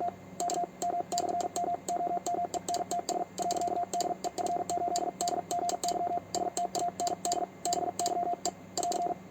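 Fast Morse code sent on a homemade 3D-printed paddle key: a steady sidetone beeping in rapid dots and dashes, with the paddle's contacts clicking at each stroke.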